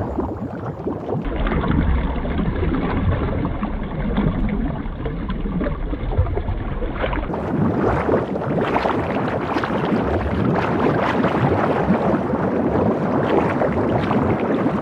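Steady rushing, bubbling water noise, like underwater or aquarium ambience. It turns duller about a second in and brighter again about seven seconds in.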